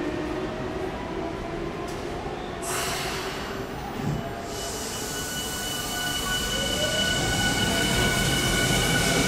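Tokyu 5050 series electric train pulling away, its Hitachi two-level IGBT VVVF inverter giving steady high whine tones, then a motor tone rising in pitch from about six seconds in as the train gathers speed and grows louder. A short burst of hiss about three seconds in.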